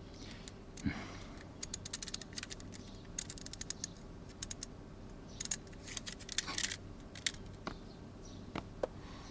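Metal handcuffs being unlocked and worked open: several short runs of quick ratcheting clicks, with a few single clicks between them.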